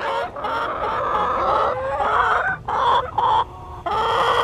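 A flock of backyard laying hens clucking and chattering, with brief lulls a little past the middle and shortly before the end.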